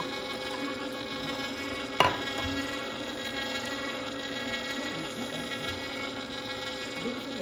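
Healsio slow juicer's motor running with a steady hum while it crushes mandarin orange segments. One sharp knock about two seconds in.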